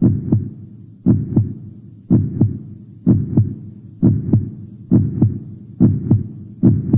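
A heartbeat, a low double thump (lub-dub) repeating about once a second and quickening slightly near the end.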